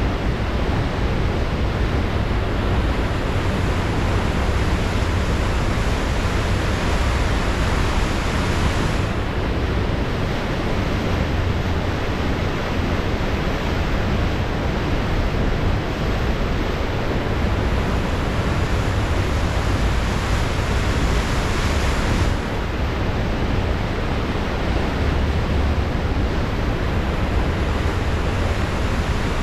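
Pacific Ocean surf washing steadily, with wind rumbling on the microphone. The hiss of the surf swells twice, in the first third and again about two-thirds through, dropping off sharply each time.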